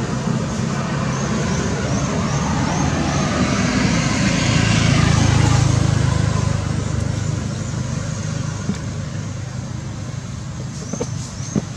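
A road vehicle passing, its engine and tyre noise swelling to the loudest point about halfway through and then slowly fading. Short high chirps repeat about twice a second over it in the first half and again near the end.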